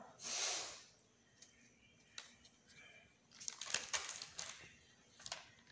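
A brief soft hiss as chilli powder is shaken out of a plastic packet, then, about three and a half seconds in, a cluster of small crinkles and clicks of the plastic packet being handled.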